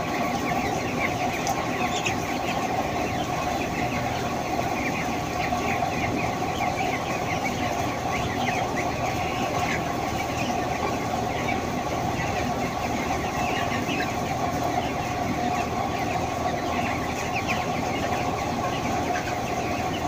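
A large flock of broiler chickens, a dense, continuous chatter of short chirps and clucks over a steady machine hum.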